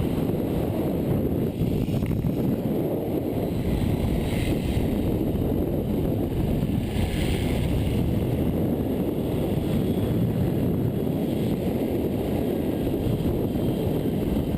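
Steady rush of wind buffeting the microphone of a camera riding a fast zip line.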